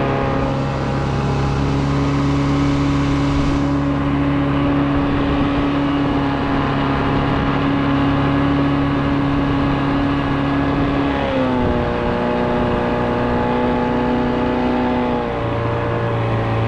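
A 9.8 hp Mercury outboard motor running steadily, pushing a jon boat along. Its pitch drops a little about eleven seconds in and shifts again near the end as the throttle is eased.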